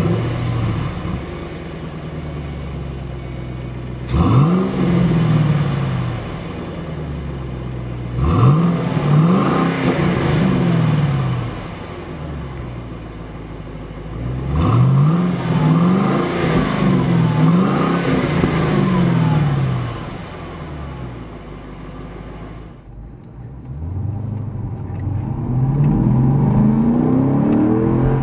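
2005 Ford Mustang GT's 4.6-litre V8 through a Magnaflow cat-back exhaust with race mufflers, idling and being revved in quick blips: one about four seconds in, a few around eight to ten seconds, and a string of revs from about fifteen to twenty seconds. Near the end it is heard from inside the cabin, accelerating with a steadily rising pitch.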